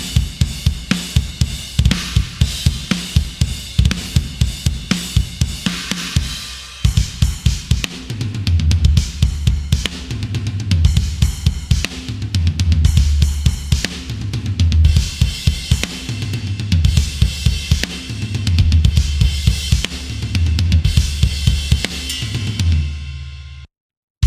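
Sampled metal drum kit from the EZdrummer 3 Modern Metal EZX library playing a hard-hitting groove of rapid kick drum hits, snare and cymbals. From about a third of the way in, a deep sustained low tone runs under the beat. The playing stops abruptly near the end.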